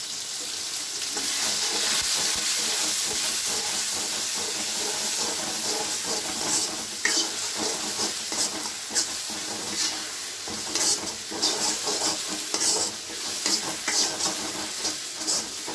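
Onion-tomato paste sizzling in hot oil in a steel wok, with a steel ladle stirring and scraping against the pan. The scrapes come more often in the second half.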